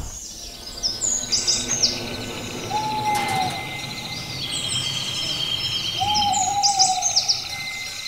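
Birds calling: many quick high chirps, with a hooting call about three seconds in and a longer hoot about six seconds in.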